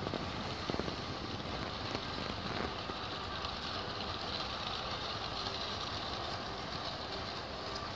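Long LEGO passenger train rolling past on plastic track, a steady running noise with a few faint knocks in the first few seconds.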